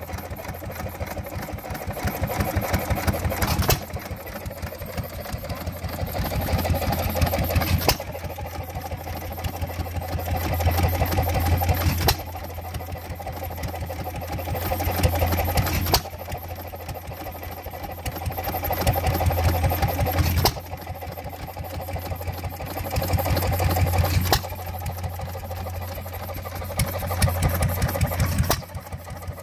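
Antique hit-and-miss stationary engines running: a fast, even chuffing of strokes whose loudness swells and then drops back sharply about every four seconds.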